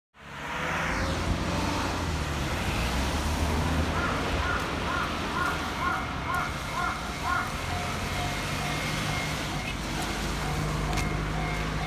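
Steady road traffic at a railway level crossing. From about four seconds in, a level-crossing warning alarm rings faintly beneath it in an even repeating pattern, as the crossing closes for an approaching train.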